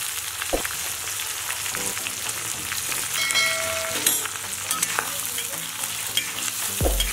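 Onions, green chillies, curry leaves, ginger and garlic sizzling in hot oil in an iron kadhai, with scattered clicks and scrapes as the pan is stirred.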